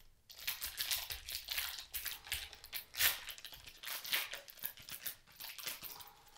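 Foil wrapper of a Panini Prizm basketball retail pack being torn open and crinkled by hand: a dense, irregular run of crackling that starts about a third of a second in.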